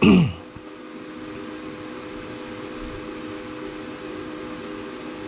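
Glowforge Pro laser cutter's fans running with a steady hum and a few steady tones while the machine readies a job.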